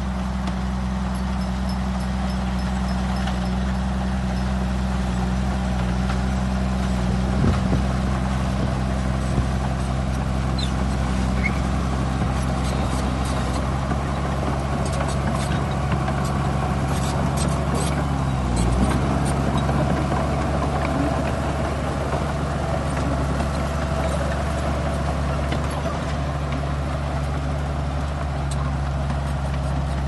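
Shantui crawler bulldozer's diesel engine running steadily under load as it pushes soil, with a few light clicks and clanks around the middle.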